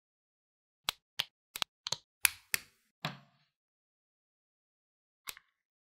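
Plastic building-brick parts clicking together: a quick run of about eight sharp clicks over two seconds, then a single click near the end.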